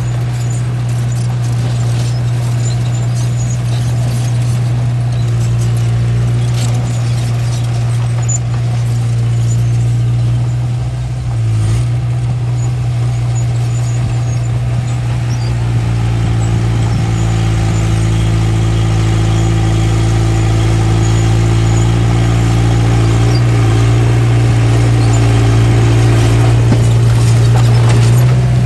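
Small bulldozer's diesel engine running steadily under load, with a brief dip in its note about a third of the way in and a slightly louder, fuller note through the second half.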